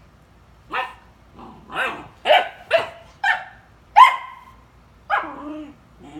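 Great Dane puppy play-barking: about seven short barks over five seconds, the loudest about four seconds in, the last one longer and falling in pitch.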